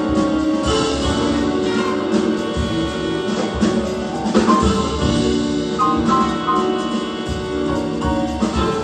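Big-band jazz ensemble playing live, with horns, rhythm section and drum kit, heard from the audience seats of a theatre.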